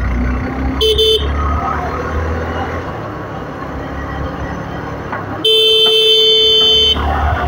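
Suzuki motorcycle riding along a street, its engine and wind making a steady low rumble. A vehicle horn honks briefly about a second in, then gives one long blast of about a second and a half near the end, the loudest sound.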